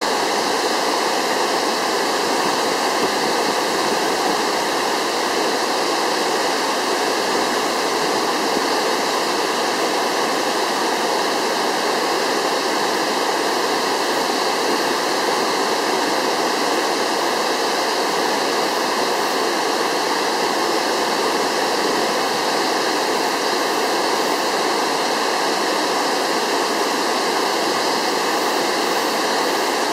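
Minoo Falls in spate, swollen by typhoon rain, pouring in a steady, unbroken rush of water.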